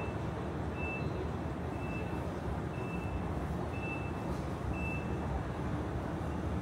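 A vehicle's reversing alarm beeping six times, about once a second, over steady street traffic noise.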